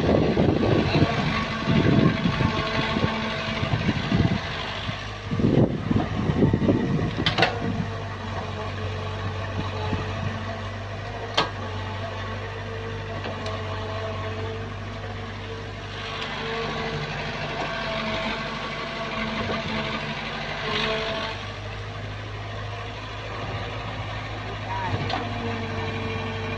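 Kobelco SK03 excavator's diesel engine running steadily while the machine digs and swings soil, with a louder, rougher stretch of noise over the first seven seconds and a single sharp click about eleven seconds in.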